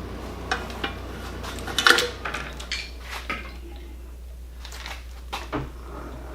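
Scattered metallic clinks and clanks of metal parts and tools being handled, the loudest cluster about two seconds in and a few lighter knocks near the end, over a steady low hum.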